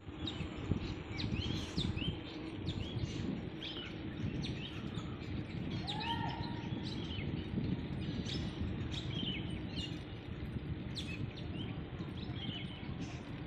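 Many small birds chirping and trilling in quick, overlapping calls, over a steady low rumble of background noise.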